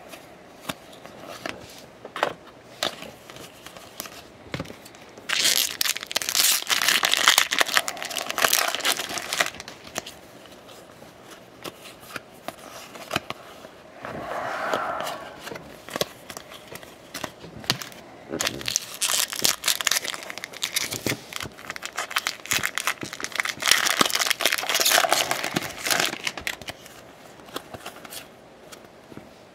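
Topps baseball cards being flipped and slid past one another by hand, a dry crackly rustle full of small clicks. It comes in two long busy stretches, one a few seconds in and one from about two-thirds of the way through, with quieter handling between.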